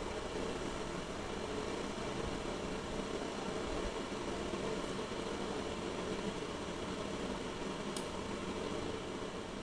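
Steady machine hum and hiss from a CHULUX single-serve coffee maker running a cleaning cycle while it heats its water, with one short click about eight seconds in.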